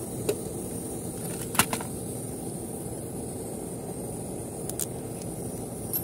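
Central air conditioner's outdoor condensing unit running with a steady low hum, overlaid by a few sharp clicks and knocks of a cordless drill being handled against its metal panel; the loudest knock comes about one and a half seconds in.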